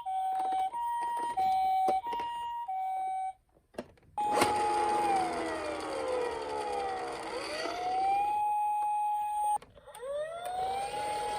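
Toy emergency-vehicle minicar sirens. First an electronic two-tone hi-lo siren alternates between a high and a low note, about 1.4 s per cycle, in the Japanese ambulance 'pee-po' pattern, and stops about three seconds in. After a short pause a wailing siren starts, holds a note, slides down and back up, cuts off briefly near the end, then rises again.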